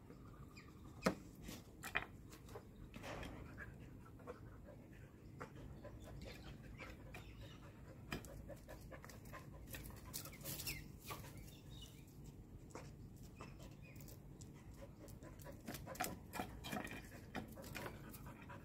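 Australian shepherd moving about on stone patio pavers, with scattered light clicks and scuffs from its steps.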